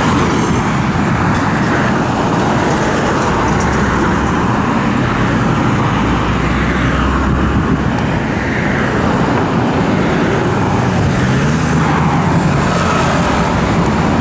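Heavy road traffic passing close by: cars, pickups, trucks and motorcycles, a continuous mix of engine rumble and tyre noise that swells as vehicles pass one after another.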